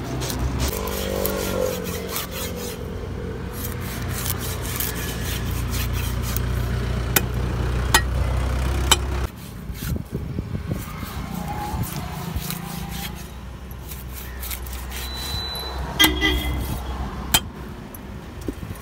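Short scraping strokes of a metal-toothed fish scaler on a fish's skin over a steady low motor rumble. About nine seconds in the sound cuts to a knife chopping fish into steaks on a wooden block, with a couple of sharp knocks near the end.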